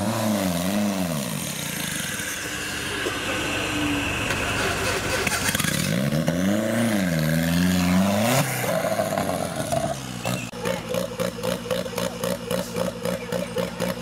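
Off-road 4x4's engine revving hard in two bursts as the vehicle claws up out of a mud pit, the pitch rising and falling, with the second burst cut off abruptly. It then settles into a steady pulsing run, about four beats a second.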